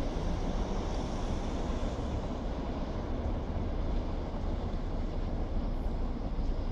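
Steady low rumble and hiss of a moving train, with no horn or distinct clanks.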